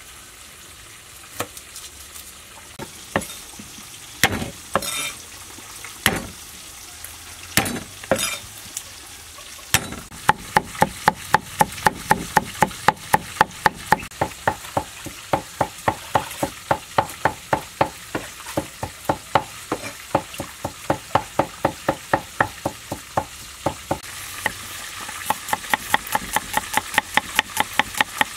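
Kitchen knife chopping on a thick wooden chopping block: a few scattered knocks at first, then steady chopping at about three strikes a second from about ten seconds in, mincing garlic. Near the end the strokes come faster as shallots are sliced.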